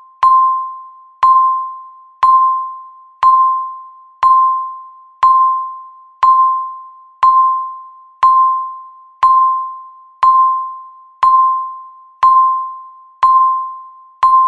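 Countdown timer beep sounding once a second, fifteen times: each is a single bell-like ding at one pitch that fades away before the next. Each beep marks one of the final seconds left on the countdown.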